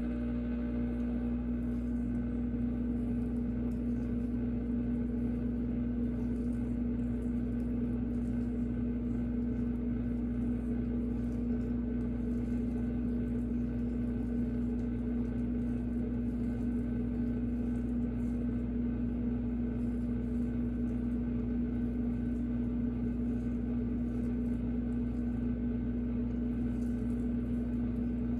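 A steady, unchanging electric hum with a strong low tone, from an appliance running.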